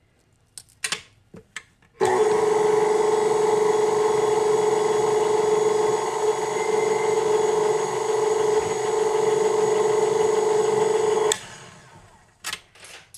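Electric stand mixer's motor running steadily as its dough hook turns through dry spelt flour, starting suddenly about two seconds in and switching off near the end. A few short clicks come just before it starts and just after it stops.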